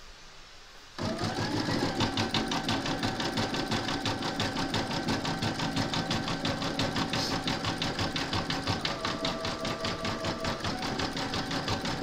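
Embroidery machine starts about a second in and stitches an appliqué zigzag. It makes a fast, even clatter of needle strokes over a steady motor whine that rises as it gets up to speed and shifts pitch a couple of times.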